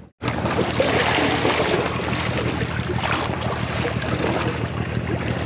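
Wind buffeting the microphone over open sea, with water washing against a small boat's hull. The sound drops out briefly at the very start, then runs steadily.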